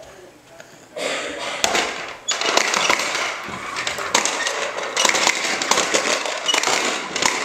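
Plastic push-along popper toy being pushed across the floor: the small balls inside its clear dome rattle and pop in a dense crackle. The crackle starts about a second in and breaks briefly near a third of the way through.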